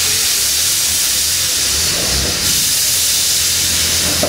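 Steam locomotive venting steam: a loud, steady hiss with a low hum beneath it.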